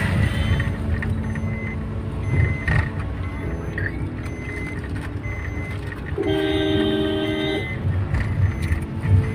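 Steady low rumble of a moving road vehicle, with a vehicle horn sounding once for about a second and a half, about six seconds in.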